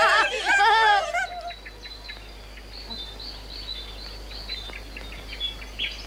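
A cartoon character laughing for about the first second, then small birds chirping faintly in short, high, repeated calls.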